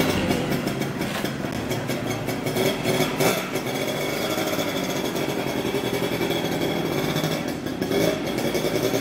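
Classic motorcycle engine running at a steady idle, firing in a rapid even beat, with one sharper louder moment about three seconds in.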